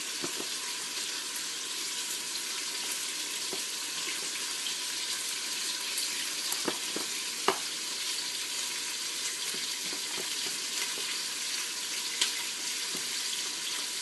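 Onions frying in hot oil, a steady sizzle and crackle, with a few light clinks about halfway through and again near the end.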